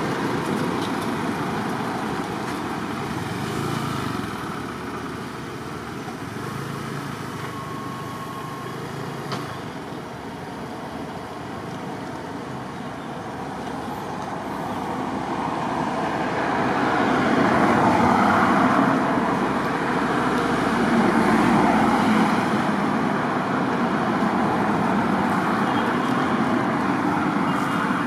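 Road traffic noise, a steady rush that swells louder about halfway through as a vehicle goes past.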